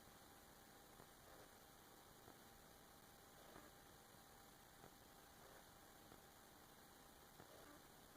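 Near silence: faint steady hiss and hum, with a few faint ticks.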